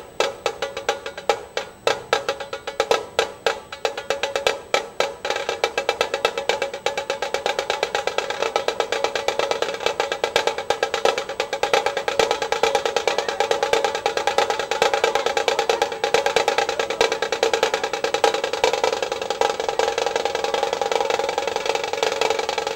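Dhol-tasha ensemble drumming with sticks: separate sharp strokes a few times a second, then about seven seconds in the drumming becomes a dense, continuous rapid roll.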